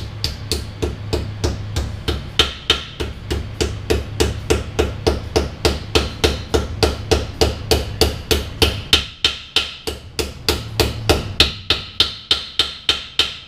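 A hammer drives the front pinion seal into a Chevy 8.6 differential housing: steady, even metal blows, about four a second, each ringing briefly. The blows soften for a moment past the middle.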